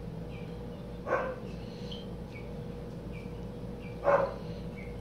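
Baby dove being hand-fed, sucking seed mash from between fingers the way it sucks crop milk from its mother's throat. Two short, louder feeding noises come about a second in and again about four seconds in, over faint high chirps that repeat.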